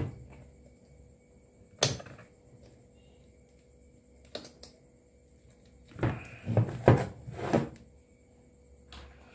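Knocks and scrapes of a washing machine's plastic control-board housing being handled on a workbench while a desoldered relay is pulled free. A sharp knock comes about two seconds in and another about halfway through, then a louder cluster of knocks and scraping a little after six seconds.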